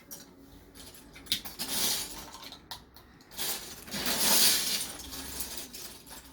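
Loose plastic Lego bricks clattering as hands rummage through a bin of pieces: scattered clicks, with two longer rattling spells, about a second and a half in and from about three and a half to five seconds, the second the louder.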